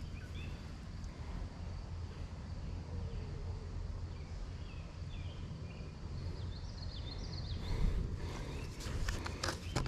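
Outdoor ambience: a steady low rumble of wind on the microphone, with faint short bird chirps through the middle and a few sharp handling clicks near the end.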